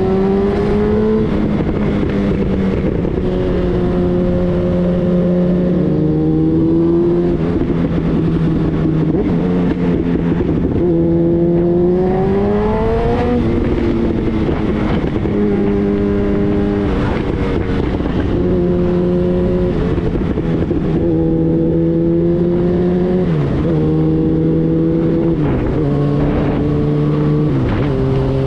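Yamaha FZ1-N's inline-four engine running through a GR Moto titanium slip-on exhaust with the baffle removed, while being ridden: the engine note rises under throttle and drops back again and again, stepping down several times near the end.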